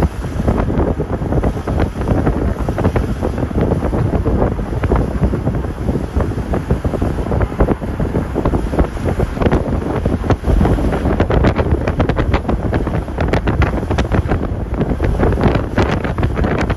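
Wind buffeting the microphone of a moving car, a loud, steady rough rumble with irregular crackles, with the car's road and engine noise underneath.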